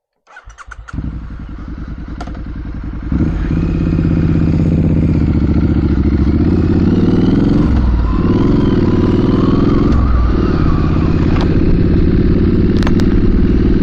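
Triumph SS900 motorcycle engine, heard through a helmet-mounted microphone, cranked by the starter in a quick run of pulses and catching about a second in. It runs steadily, grows louder at about three seconds, and its note dips and climbs back twice later on.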